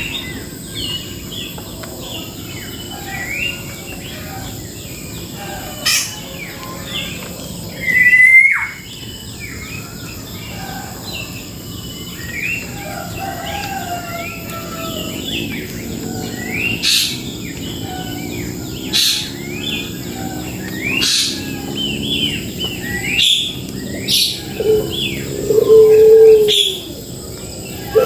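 Birds chirping and calling, many short notes overlapping, with a louder call about 8 seconds in and a lower, drawn-out call near the end.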